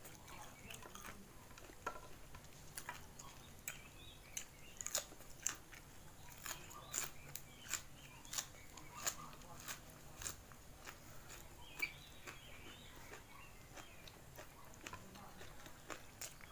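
Close-up eating sounds of a person chewing crunchy food: a run of sharp crunches, thickest in the middle, then softer chewing.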